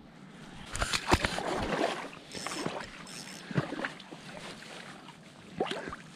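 Fishing gear being handled: a few sharp clicks and knocks with rustling between them, and a brief high hiss in the middle.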